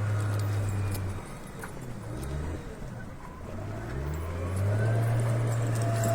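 Engine of a heavy snow-clearing machine running with a steady low drone. About a second in it drops away and wavers up and down in pitch for a few seconds, then the steady drone comes back.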